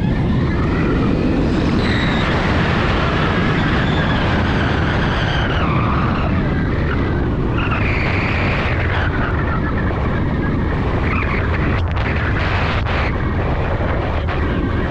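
Steady, loud rush of wind buffeting a wing-mounted camera's microphone in hang-glider flight, with faint wavering tones coming and going and a few sharp knocks near the end.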